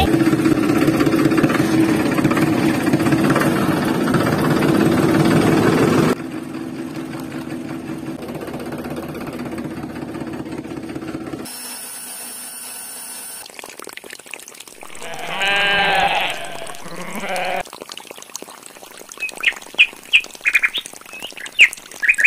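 Small DC motors of a toy belt-driven water pump running with a steady hum, dropping in level about six seconds in and stopping near twelve seconds. Then a long bleat with a shorter one after it, and short high bird chirps near the end.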